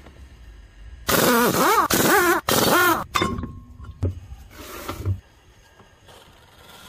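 Impact wrench spinning off the wheel's lug nuts in several short trigger bursts, the motor's whine rising and falling within each burst. A last shorter burst comes about five seconds in.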